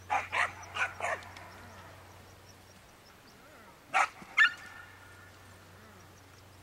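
A dog barking: four quick barks, then two more about four seconds in.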